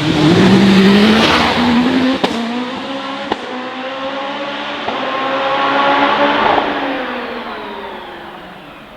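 Hillclimb race car accelerating hard up the hill, its engine note climbing and stepping down at each quick upshift, with sharp cracks at the gear changes. It fades into the distance over the last few seconds.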